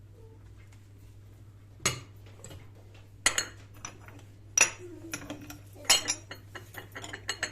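Hard clinks and clatters of tableware being handled: a few sharp strikes about a second and a half apart with lighter clinks between, over a low steady hum.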